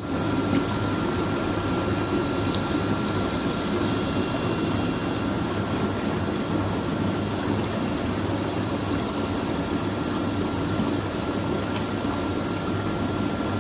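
Ozone hydromassage tub running: a steady motor hum with a thin constant whine over the churning, bubbling water of the jets.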